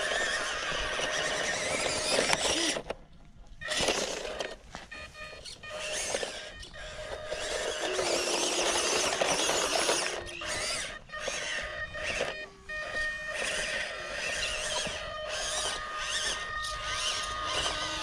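Electric motor and plastic transmission and axle gears of a 1/18-scale EazyRC Toyota LC80 RC crawler whining as it climbs over dirt. The whine cuts out briefly about three seconds in, then comes in short spurts as the throttle is let off and applied.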